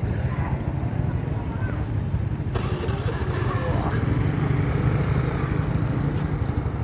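Motorcycle engine running steadily close by, with faint voices in the background.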